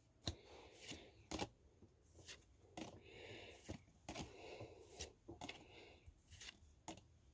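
Pokémon trading cards being handled and slid against one another as a freshly opened booster pack is sorted, giving soft rustles and light clicks about twice a second.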